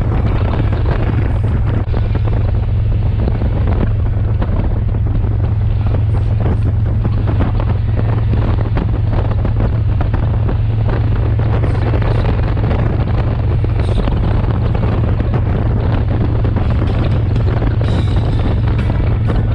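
Harley-Davidson touring motorcycle's V-twin engine running at a steady cruise, with wind buffeting the microphone.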